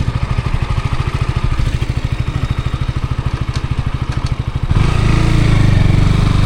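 KTM Duke 200's single-cylinder engine running with an even, rapid pulse, growing louder and fuller about five seconds in.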